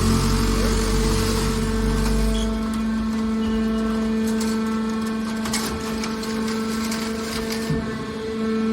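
Hydraulic scrap-metal baler running: a steady machine hum from its power unit, with a deeper rumble that eases off about two and a half seconds in and a few short metallic knocks midway.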